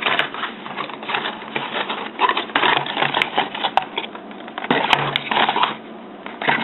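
Mouse packaging being handled and worked at by hand: irregular bursts of plastic and cardboard rustling, crinkling and clicking.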